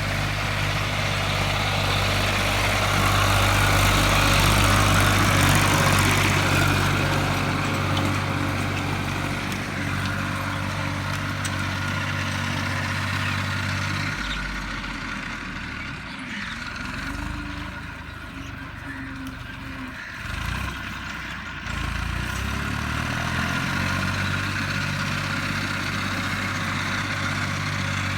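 Tractor engine running steadily, as when pulling a plough. About halfway through, the engine note drops and wavers for several seconds, then settles back to its steady pitch.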